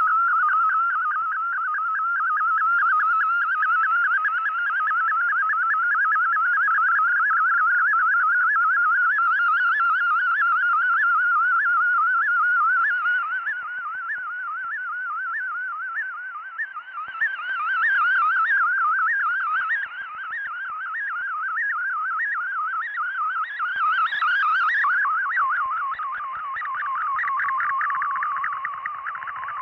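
Shortwave radio reception through a software-defined receiver: a single warbling tone that wavers quickly up and down, the kind of digital data-mode signal the Shortwave Radiogram transmits for decoding in Fldigi. Near the end the pattern turns denser and faster.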